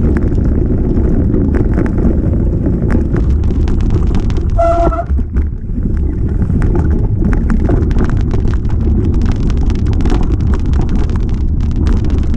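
Mountain bike ridden over a rough trail: wind buffeting the camera microphone over a low rumble, with constant clattering clicks of the bike jolting over the ground. A brief high squeal about five seconds in.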